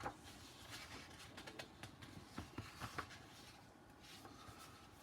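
Faint handling noise of a large hardcover book: soft rustling with a few light taps and clicks, one at the start and a quick cluster of them around the middle.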